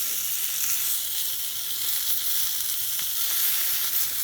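Sirloin steak sizzling steadily in a hot oiled pan as its sides and corners are seared.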